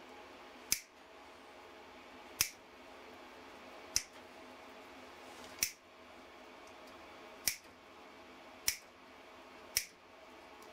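Small hand wire cutters snipping through chicken wire: seven sharp snips, one every second or two, as the loops along the cut edge are clipped one after another.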